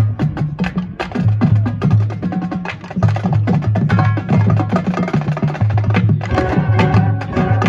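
High school marching band playing: rapid, closely spaced percussion strikes with drums over sustained wind and brass chords.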